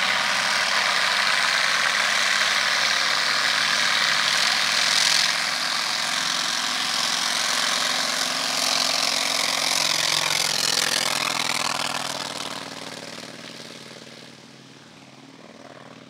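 Single-engine propeller airplane at full power on its takeoff run along a grass strip. The engine and propeller note is loud and steady, drops in pitch as the plane goes past about ten seconds in, then fades over the last few seconds as it pulls away.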